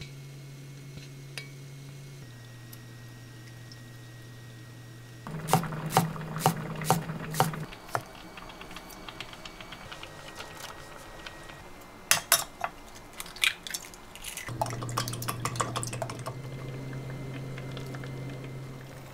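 A metal spoon clinks sharply against a cast-iron pot several times in stirring, then comes a second cluster of sharp taps as seasoning is added. Near the end the soup simmers with a steady bubbling hiss as beaten egg is poured in.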